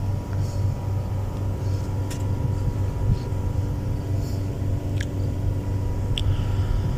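A steady low mechanical hum with a few faint steady tones above it, and a few short, high clicks or chirps scattered through it.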